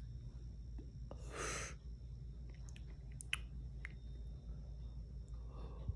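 One short breath, about half a second long, taken about a second in as a person comes off a hit from a vape pen. It is followed by a few faint clicks.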